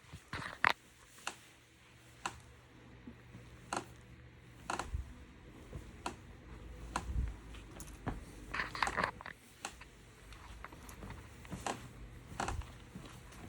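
A sofa giving off scattered short creaks and clicks, with a denser burst about nine seconds in and a few dull low thumps: the abnormal noise the sofa is making.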